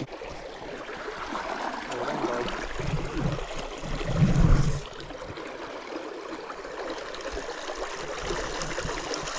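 Shallow river water running steadily, with a brief low rumble about four seconds in.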